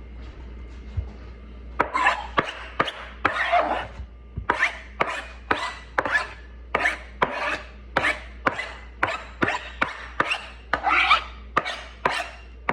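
A quick series of rasping, scraping strokes, about two a second, starting about two seconds in and stopping near the end.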